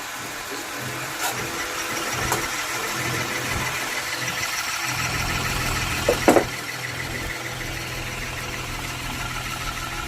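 Ceiling fan motor running on test, a steady electrical hum with whirring overtones that gets stronger about five seconds in. A brief louder sound breaks in just after six seconds.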